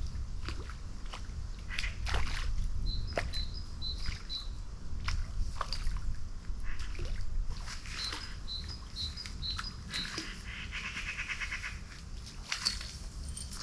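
Birds calling outdoors: runs of short, high repeated notes, twice, and later a rapid trill, over a low steady rumble and scattered small clicks.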